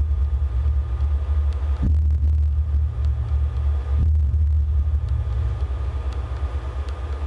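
Amplified piezo contact-mic sound from metal wires: a loud, deep, steady rumble, with a brief rising low tone about two seconds in and again about four seconds in.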